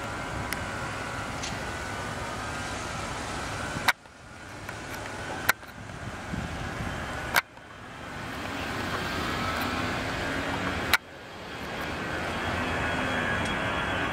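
Steady rumble of jet aircraft engines with a faint whine, louder near the end. It is broken four times by sharp clicks, each followed by a sudden drop in level and a gradual return.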